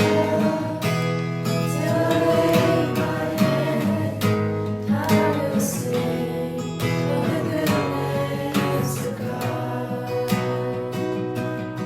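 Worship music: acoustic guitar strummed steadily, with singing.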